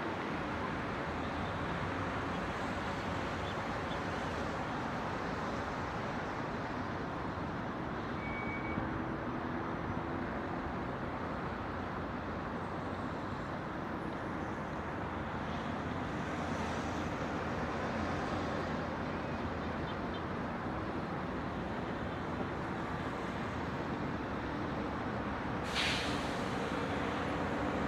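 Steady city traffic noise, a continuous blend of road vehicles, with a short hiss near the end.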